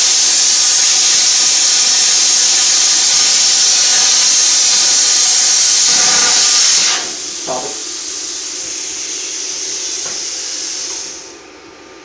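Handheld plasma cutter cutting steel: a loud, steady hiss of the arc and air jet. About seven seconds in it drops off sharply as the arc goes out, leaving a quieter hiss of the torch's post-flow cooling air, which stops about four seconds later.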